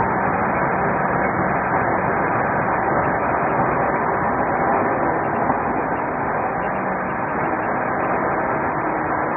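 Steady rushing road and engine noise of a patrol car driving at speed, heard from inside the car, muffled and without change.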